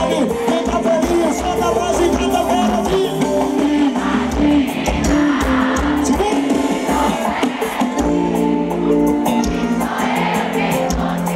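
Live piseiro band music with a male lead singer singing a melody over the band's beat and sustained accompaniment.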